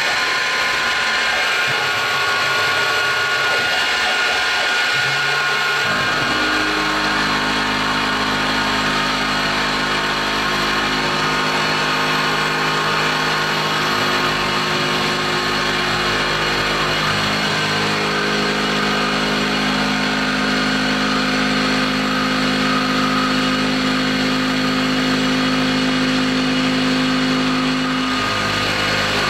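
CNC milling machine's spindle running and an end mill cutting a metal block, with the steady hiss of mist coolant spraying onto the cut. About six seconds in, a steady lower hum of several tones joins in and holds, shifting slightly near the end.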